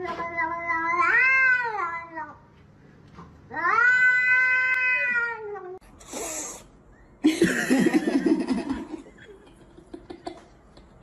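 Domestic cats yowling: two long, drawn-out meows that rise and fall in pitch, then a short hiss and a couple of seconds of rough, noisy sound.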